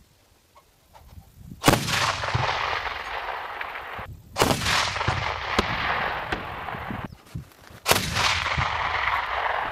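ZU-23-2 twin 23 mm autocannon firing three long bursts, each about two to three seconds, with short pauses between; the first begins about a second and a half in.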